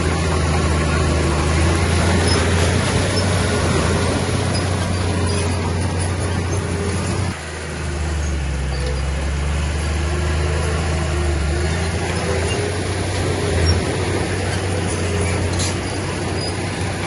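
Heavy earthmoving machinery's diesel engine running steadily under work, a deep continuous drone with a short dip about seven seconds in.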